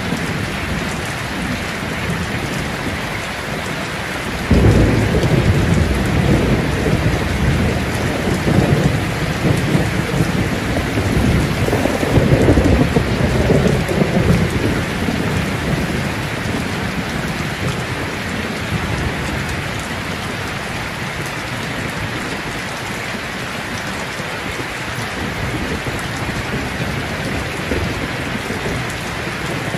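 Steady rain falling on plastic sheeting overhead, with a deep rumble of thunder that breaks in suddenly about four seconds in and dies away over the next ten seconds.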